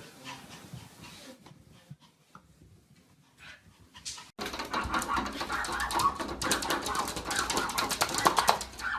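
A dog's sounds, faint at first; about halfway through it turns suddenly louder, with a dense run of rapid clicks and noise.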